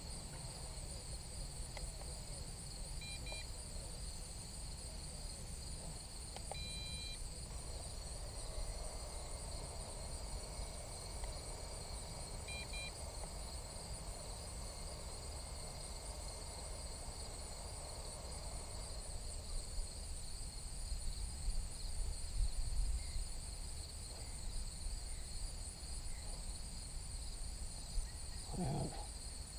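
Steady high-pitched chorus of insects, with a low rumble of wind on the microphone. A few short electronic beeps come at about 3, 7 and 13 seconds in.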